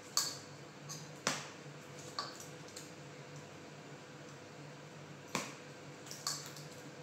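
Irregular sharp clicks and light taps from hands stuffing a hollowed zucchini with a rice filling over a steel bowl, with a few in quick succession near the end. A faint steady hum lies underneath.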